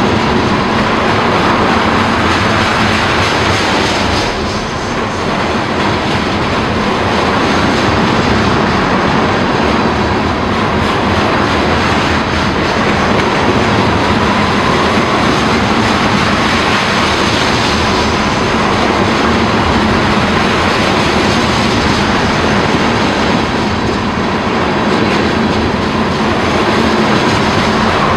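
Freight train of tank cars rolling past close by: the steady, loud rumble and rattle of steel wheels on the rails.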